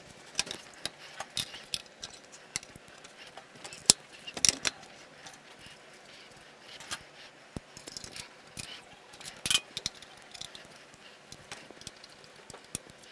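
Irregular metallic clicks and clinks of a hand tool and axle hardware as a BMW R90/6 motorcycle's spoked front wheel is fitted into the forks and its axle worked into place. The sharpest click comes about 4 s in, and there are small clusters of clinks around then and again near the 9–10 s mark.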